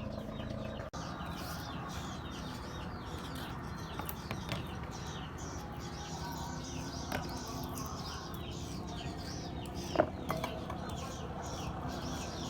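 Birds chirping over and over in quick short falling notes, with a couple of sharp clicks about ten seconds in.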